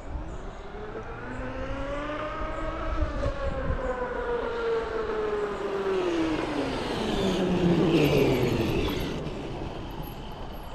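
Electric RC car on a speed run: its motor whine rises in pitch for about three seconds as it accelerates, then falls steadily as it slows, with the loudest tyre and drive noise about eight seconds in.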